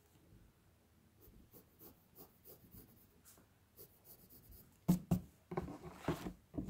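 Pencil scratching on lined notebook paper in a run of short, light strokes. About five seconds in come two sharp knocks and a louder rustling shuffle as the spiral notebook is moved on the table.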